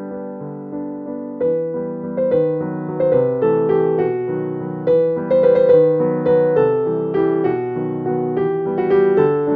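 Background piano music: a gentle melody of struck notes left to ring, growing a little busier and louder about a second and a half in.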